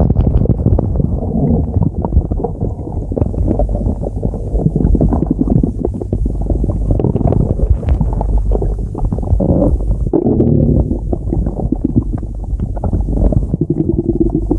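Stomach growling and gurgling: a continuous low rumble full of small crackling gurgles.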